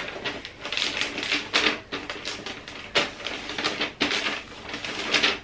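Wrapping paper crinkling and rustling as it is folded and pressed around a gift box, in quick irregular crackles with a few sharper snaps.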